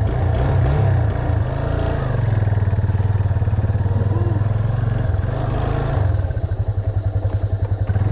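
A Yamaha FZ25's freshly rebuilt 249 cc single-cylinder four-stroke engine runs at low revs while the motorcycle rolls slowly over rough dirt. The individual firing pulses are steady and become more distinct and throbbing near the end.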